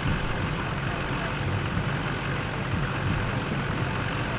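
A vehicle engine idling: a steady low rumble that does not change.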